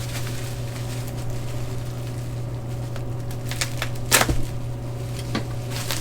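Parts being handled and unpacked from their packaging: a few short rustles and clicks, the loudest about four seconds in, over a steady low hum.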